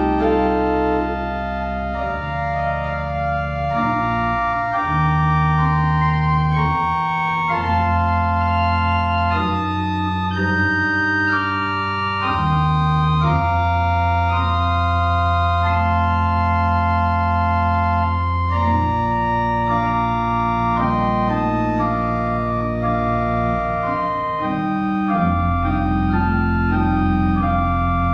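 Pipe organ playing slow, sustained chords over long held bass notes, the harmony changing every second or two.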